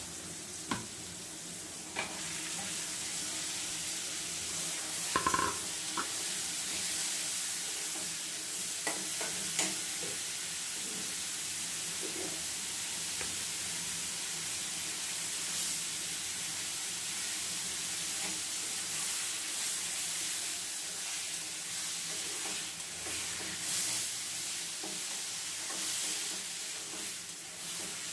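Food sizzling as it fries in a pan, stirred with a spatula that scrapes and knocks against the pan now and then. A short metallic clink about five seconds in.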